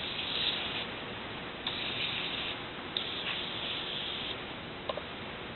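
Aerosol can of penetrating oil spraying in three short hissing bursts onto a rust-seized vise, with small clicks between them.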